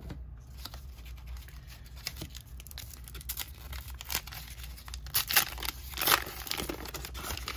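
A foil-lined 1991 Upper Deck baseball card pack being torn open and crinkled by hand. The rustling turns into a run of sharper, louder tearing and crinkling about five to six and a half seconds in.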